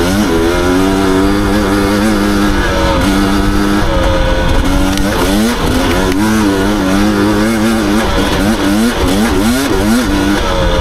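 Husqvarna TE250i two-stroke enduro motorcycle engine running under changing throttle while being ridden, its pitch rising and falling, with a quick series of throttle blips near the end.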